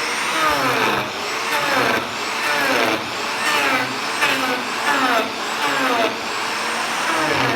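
Electric power tool cutting wood in repeated short passes, its whine dropping in pitch under load about twice a second.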